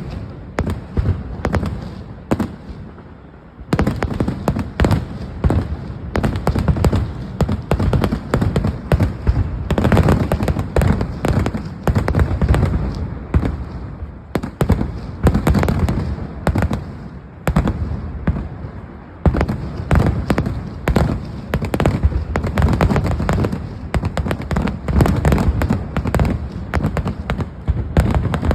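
Massed fireworks and firecrackers going off in rapid, continuous volleys of overlapping bangs, a dense crackling barrage. There is a short let-up about three seconds in before the barrage resumes.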